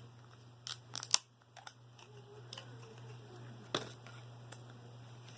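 Toy packaging being handled: a few sharp crinkles and clicks, the loudest just over a second in and another near the four-second mark.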